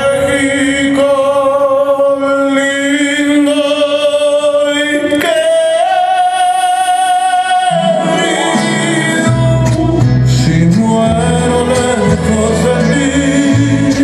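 Music with singing: long held sung notes with vibrato, stepping up in pitch about five seconds in, with low accompanying instrument notes coming in after about eight seconds.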